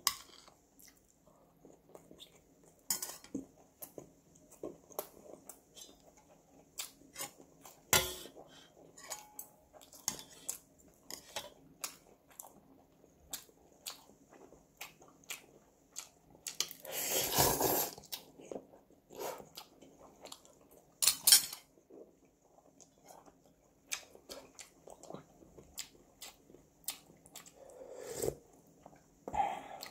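Close-up eating of ramen: chewing and mouth sounds, with metal chopsticks and a spoon clicking against the bowl many times. There is one loud, longer slurp of noodles a little past the middle.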